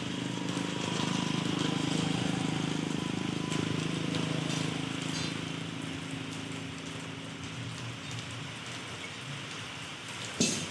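A small electric motor, such as a handheld polisher, running steadily with a hiss. Its hum stops about eight seconds in.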